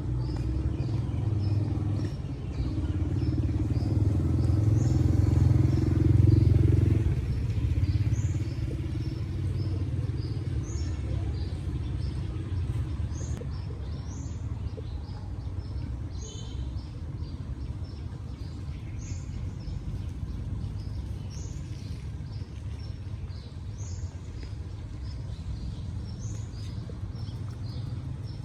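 A low engine rumble swells and peaks about six seconds in, like a vehicle passing close by, then settles to a steadier, quieter drone. Small birds chirp repeatedly throughout.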